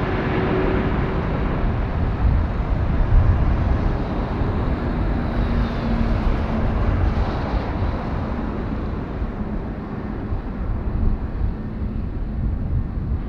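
Boeing 777 jet engines on short final: a steady rumble and hiss with a faint engine tone as the airliner flies past and descends toward the runway. Wind buffets the microphone.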